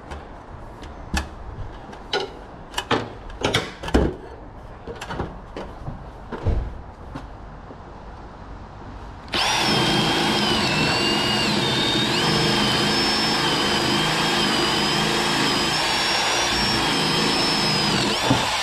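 A few knocks and clatter. Then, about nine seconds in, a cordless drill starts and runs steadily for about nine seconds, drilling a hole overhead. Its motor whine dips a little once it is under load and then holds.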